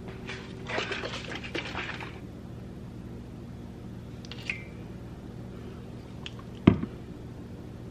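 Ingredients being handled and spooned over a steel mixing bowl: a second or so of rustling and clicks near the start, a faint short clink around the middle, and one sharp knock near the end, the loudest sound, over a steady low hum.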